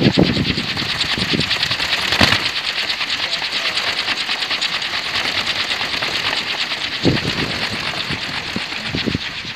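Kolecer, a Sundanese wind propeller on a tall pole, spinning in the wind with a steady, rapid rattling whirr: the 'thunder' sound it is built to make. A few short low thumps come through over it.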